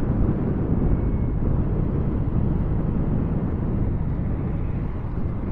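Steady rush of wind and road noise from riding a Honda PCX 160 scooter at cruising speed, with no distinct engine note standing out.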